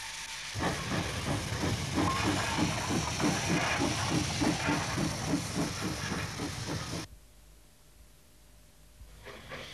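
Small steam railway engine puffing along with a quick, even chuff over a steady hiss of steam. It cuts off suddenly about seven seconds in.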